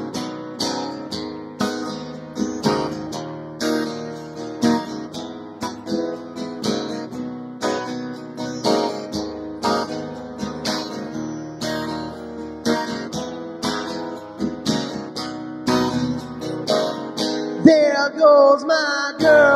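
Instrumental break of a song with no singing: guitar strummed in a steady rhythm.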